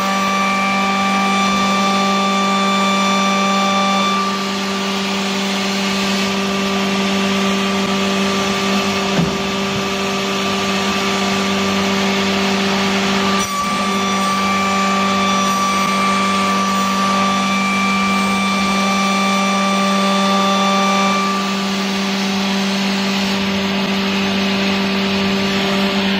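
Wood copy shaper machine running, its spindle cutter and sander working a wooden part: a steady motor hum and whine over a hiss of cutting. The higher tones shift a few times, with a brief dip about halfway through.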